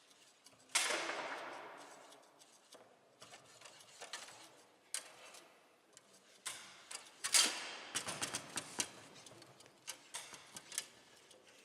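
Play on a Bonzini foosball table: irregular sharp knocks and clacks of the ball being struck and of rods and figures hitting. There is one loud bang with a ringing tail about a second in, and a quick flurry of knocks a few seconds before the end.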